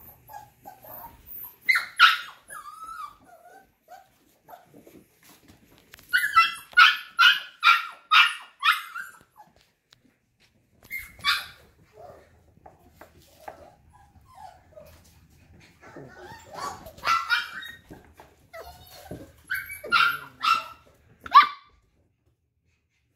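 Mini goldendoodle puppies barking in high-pitched yaps, in scattered bursts, with a quick run of about six yaps at about two a second some six seconds in.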